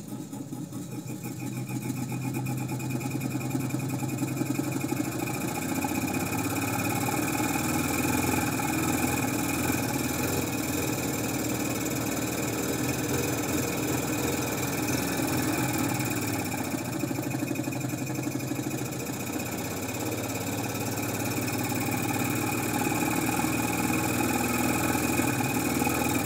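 Navy air supply unit's third-horsepower single-phase electric motor driving the diaphragm pump's crankshaft, running with a steady mechanical knock. It grows louder over the first several seconds as the power is brought up, with a hiccup in its running as the speed rises.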